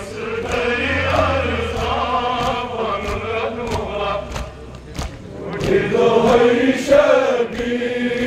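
Crowd of men chanting a Kashmiri noha, the Shia mourning lament, in unison, with sharp rhythmic chest-beating (matam) about two strikes a second.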